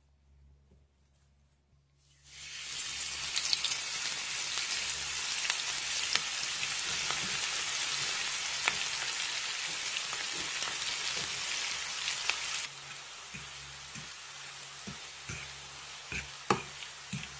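Sliced onions hitting hot oil in a frying pan and sizzling, starting suddenly about two seconds in; the onions are frying in heated oil until golden. About ten seconds later the sizzle settles lower, and a fork stirring them clicks against the pan a few times.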